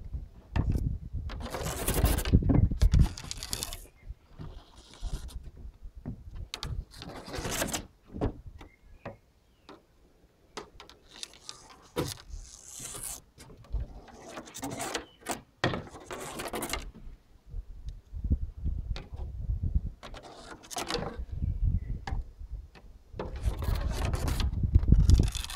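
A stick scraping and rustling in irregular bursts as a cat plays with it, several bursts carrying a low rumble.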